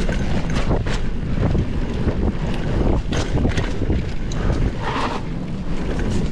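Wind buffeting the camera microphone on a mountain bike descent, with repeated rattles and knocks from the bike over rough trail.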